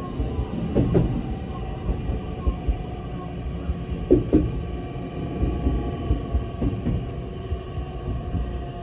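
Tokyu 7000 series later-type electric train (7109F) running, heard inside the car: a steady rumble with the faint whine of its Toshiba IGBT VVVF inverter and motors, and pairs of sharp wheel clicks over rail joints and points about a second, four seconds and seven seconds in.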